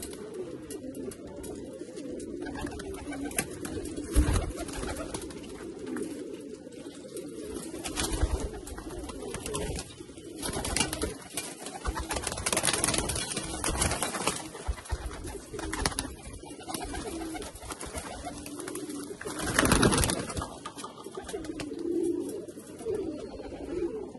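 Malwai pigeons cooing steadily in a loft, a low wavering murmur. Several short bursts of flapping and rustling break in, the loudest about twenty seconds in, as birds are handled and flutter.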